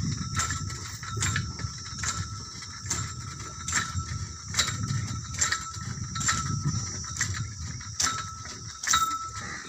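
Iron pipe of a hand-bored tube well being twisted into the ground with a lever. Each stroke gives a metallic click and squeak, about one a second, over a low rumble.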